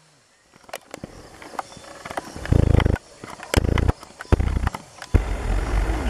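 Leaves and twigs rustling and snapping as someone pushes through dense undergrowth, with knocks and rubbing against the microphone. The noise comes in uneven heavy surges with sharp cracks between them, the last and longest starting about five seconds in.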